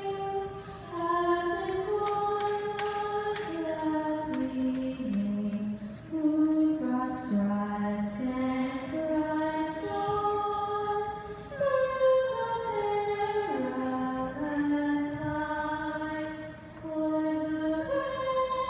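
A girl singing the national anthem solo and unaccompanied into a microphone, a single melody of held notes.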